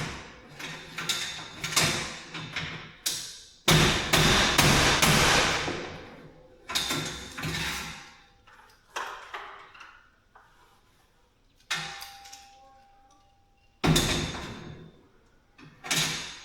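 A hammer strikes a steel garage door track through a rag laid over vise grips, bending the track closed. There are about ten sharp blows at irregular intervals, the loudest about four seconds in and near the end, and each rings out briefly.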